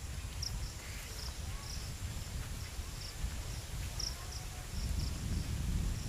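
Crickets chirping, short high chirps repeating about twice a second, over a steady low rumble.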